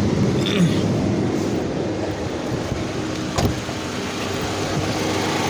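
Car's ventilation blower running steadily with a hum, with one sharp knock about three and a half seconds in.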